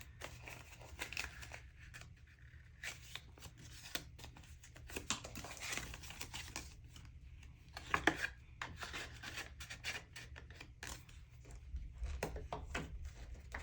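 Paper bills and envelopes being handled: faint, irregular rustling and crinkling with small clicks and taps.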